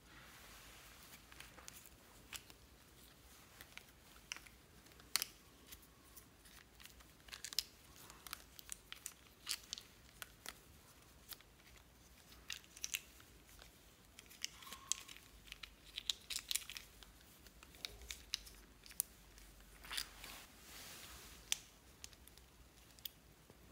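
Small plastic glitter-glue tubes being handled, uncapped and squeezed: an irregular string of sharp little plastic clicks and clacks with light rustling.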